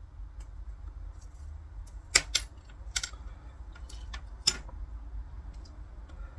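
Four sharp clicks and taps, two close together about two seconds in and two more spread over the next two seconds, with a few fainter ticks, as hard rod parts are handled and fitted together, over a low steady hum.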